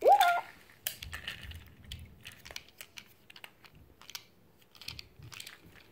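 Light, irregular plastic clicks and taps of a toy train engine and wagon being handled and fitted together, with a short vocal sound at the very start.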